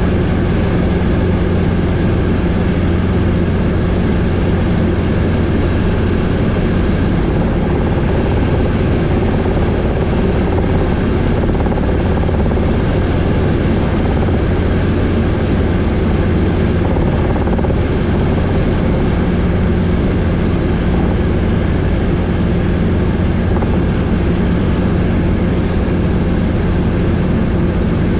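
Helicopter engine and rotor noise heard from on board in flight: a loud, steady drone with a strong low hum.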